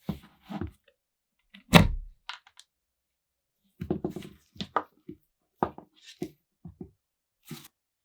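Workshop handling of parts and tools: a series of separate knocks and clunks, with one loud thunk about two seconds in and a quicker run of knocks in the second half.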